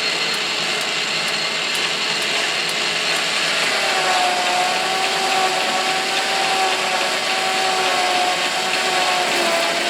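Metal lathe running and taking a heavier cut on the outside of a grade 8 steel nut, a steady machining noise. About four seconds in a steady whining tone joins it and holds.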